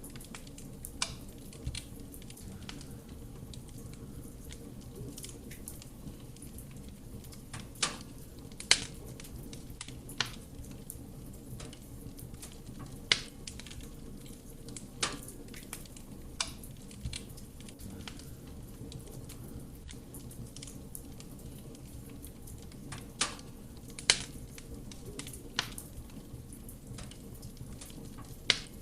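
Wood fire burning in a fireplace: a steady low rush of flame with sharp, irregular crackles and pops of the burning wood, about a dozen scattered through.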